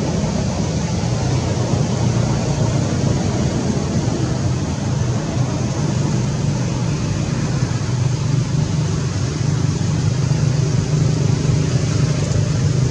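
Steady low drone of motor-vehicle noise, like road traffic or an engine running nearby, holding an even level throughout.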